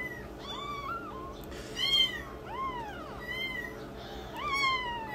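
Newborn kitten mewing over and over: thin, high cries that rise and fall, about six in five seconds, the loudest about two seconds in.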